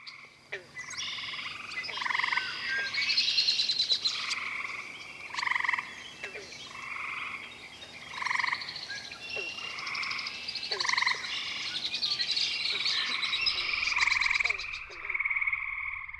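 A night chorus of gray treefrogs (Hyla versicolor), their short musical trills repeating and overlapping, with higher-pitched trills from other callers above them. Near the end one close treefrog's trill comes to the fore, longer and steadier.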